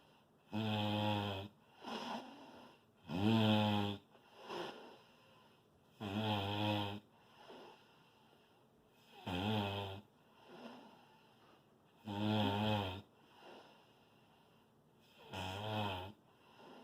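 Loud snoring: six snores about three seconds apart, each a buzzing rasp followed a moment later by a fainter breath.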